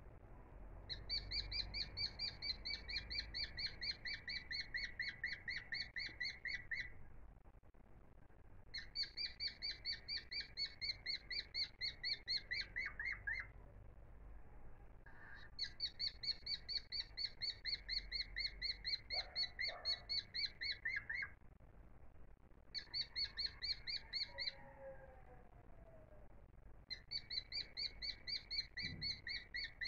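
Chirping animal call: fast trains of short chirps, about five a second, repeated in bouts of several seconds with short pauses between, over a faint low rumble.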